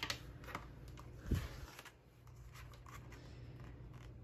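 Pages of a hardcover picture book being turned by hand: soft paper rustles and light taps, with one dull thump just over a second in.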